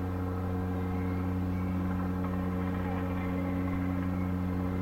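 Whistle of the cruise ship MSC Bellissima giving one long, low, steady blast.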